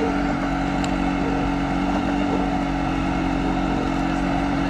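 A small engine on the boat running steadily at one constant speed: an even, unbroken drone.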